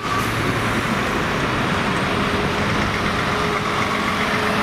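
Steady road traffic noise, tyres and engines, as a Scania R730 V8 truck and cars approach on the road.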